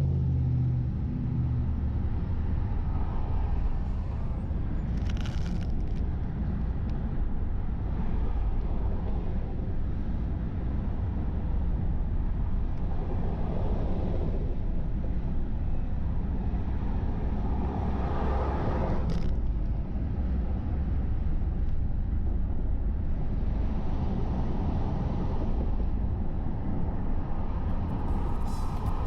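A car being driven: steady low road rumble and tyre noise, with a couple of brief swells in the noise.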